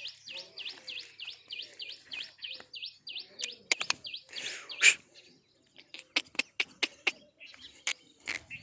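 A small bird chirping rapidly, the same short call repeated about four times a second, stopping about three and a half seconds in. Then a run of sharp clicks and knocks.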